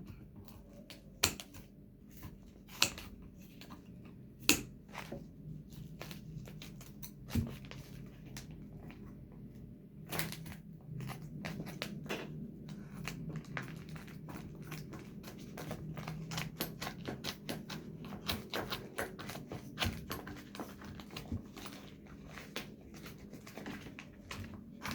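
Hands unwrapping and handling a package: a few separate sharp clicks and taps, then dense crinkling and rustling of packaging from about ten seconds in.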